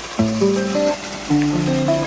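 Background music: short phrases of plucked guitar-like notes, each phrase about half a second to a second long, with brief gaps between them.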